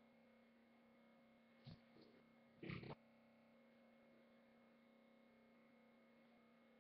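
Near silence with a faint steady hum, broken by a brief click about a second and a half in and a short, louder noise just before three seconds.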